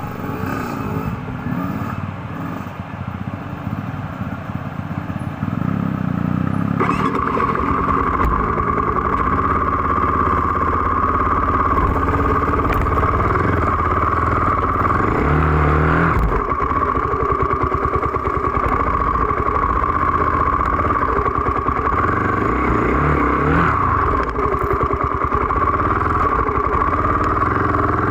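KTM EXC enduro motorcycle engine running continuously as the bike rides a rough dirt trail, heard close from the bike itself. It gets louder about six to seven seconds in, with small changes in revs later on.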